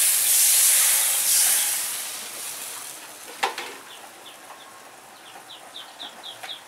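Water poured into a kadai of hot oil and frying crab, hissing loudly and dying away over about two seconds. A sharp knock comes a little past three seconds in, then a small bird chirps repeatedly, about three short chirps a second.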